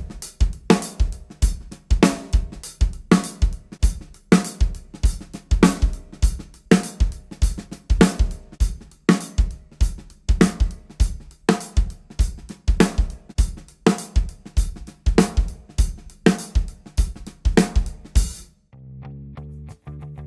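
Acoustic drum kit played in a steady beat on kick, snare and hi-hat, with Promark 5A drumsticks of different woods (hickory Forward 5A, then maple Finesse 5A) compared in turn. Near the end the drumming stops and a short music cue with low sustained tones starts.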